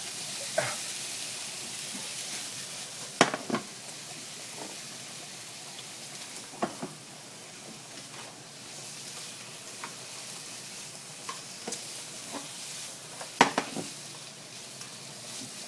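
Cucumber, scallops and bacon sizzling in oil in a nonstick frying pan, stirred with a slotted spatula. Steady sizzle throughout, with several sharp knocks of the spatula against the pan, the loudest near the end.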